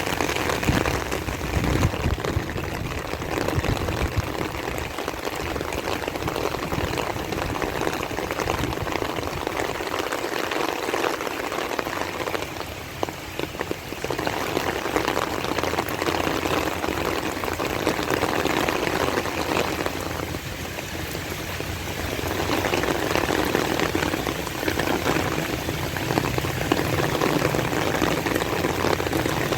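Rain falling steadily, a dense even hiss of drops on the ground and surfaces around.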